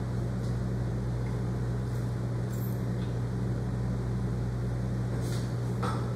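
Steady low background hum of a running machine, with two light metal clicks near the end as the saw-filing machine's file carriage is worked by hand.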